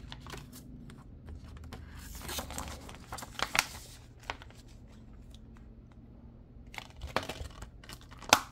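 Paper artwork insert rustling and scraping as it is slid out, turned over and worked back into the sleeve of a clear plastic Blu-ray case, in spells of handling with a sharp click of the plastic case near the end.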